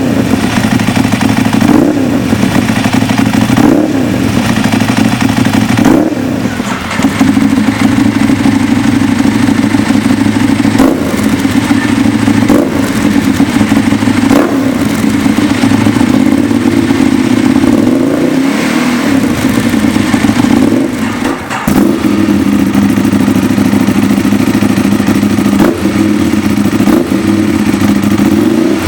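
Ducati 1098's L-twin engine on an aftermarket exhaust, idling and blipped by the throttle every couple of seconds so the revs rise and fall back.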